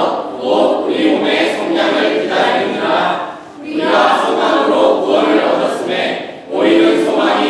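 A group of teenage voices reciting Bible verses together in unison in Korean, phrase by phrase, with short pauses about three and a half and six seconds in.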